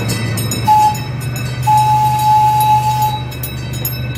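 Miniature amusement-park train running with a steady low drone and sounding a high, single-pitched horn: a short toot just under a second in, then a long one of about a second and a half.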